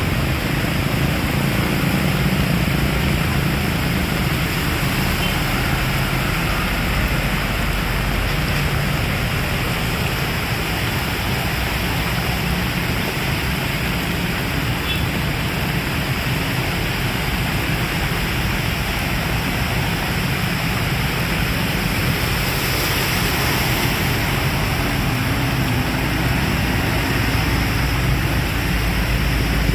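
Heavy rain falling steadily in a loud, even hiss.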